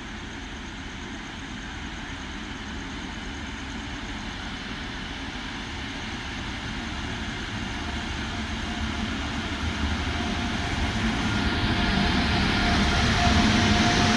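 A pair of Indian Railways WAP-7 electric locomotives drawing near, their running rumble and hiss growing steadily louder. A faint steady whine comes in near the end.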